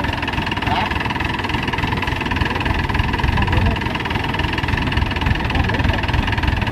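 Maxxi HD85 Turbo combine harvester's diesel engine running steadily while the machine stands still.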